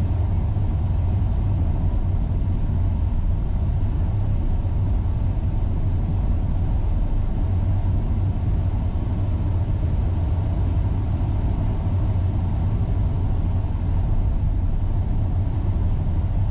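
Dacia Dokker minivan driving, heard from inside the cabin: a steady low rumble of engine and road noise.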